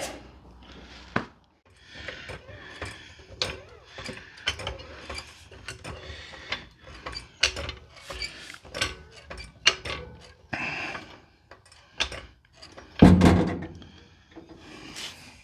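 Scattered clicks, knocks and rubbing of work on a car door and its hinges, with a louder thump near the end.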